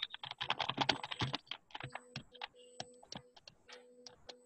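Typing on a computer keyboard: fast runs of key clicks, thinning out to scattered clicks about halfway through.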